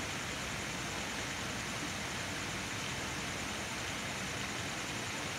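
Steady hiss of outdoor background noise, even and unchanging, with no distinct events.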